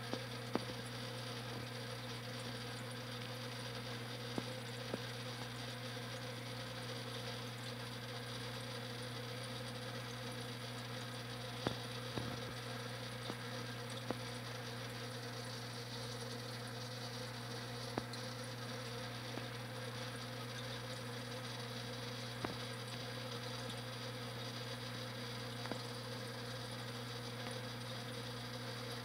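Steady electric buzzing hum of an aquarium pump, with a few faint clicks scattered through it.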